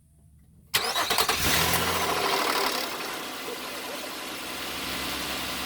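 2013 Nissan Pathfinder's 3.5-litre V6 starting: a brief crank, the engine catching with a loud flare for about two seconds, then settling to a steady idle. First start after an oil change with fresh Mobil 1.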